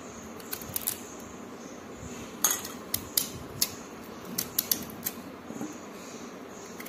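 Serrated kitchen knife cutting peeled potatoes and sweet potatoes into small pieces by hand over a steel bowl of water. Scattered sharp clicks and taps of the blade and pieces, a few louder ones between two and a half and three and a half seconds in.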